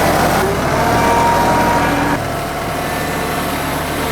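TYM 2515H compact tractor's three-cylinder diesel engine running under way, a steady drone that eases a little about two seconds in.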